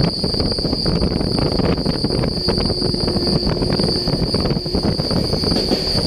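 Rumble and dense rattling of a moving vehicle on the road or rails, with a steady high-pitched whine throughout.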